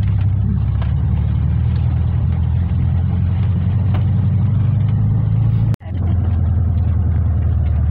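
Volkswagen Kombi van driving on an unpaved road, heard from inside the cab: a steady low engine drone with tyre and road noise. The sound cuts out for an instant about six seconds in, then carries on unchanged.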